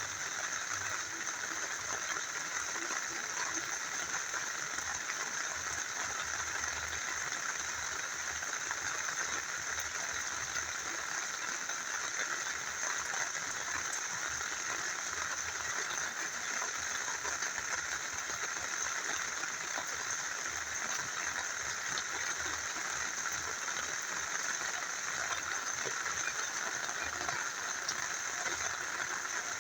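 Steady rain together with a small river flowing, an even rushing hiss with no breaks.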